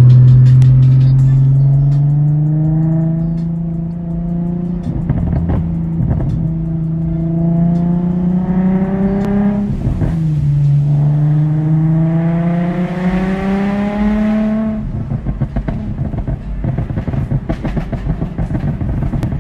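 Nissan 350Z's VQ35HR V6 engine, with bolt-on parts and a tune, accelerating hard: its note climbs steadily, drops sharply at an upshift about ten seconds in, then climbs again through the next gear. About fifteen seconds in, the rising note stops and gives way to an uneven, pulsing rumble.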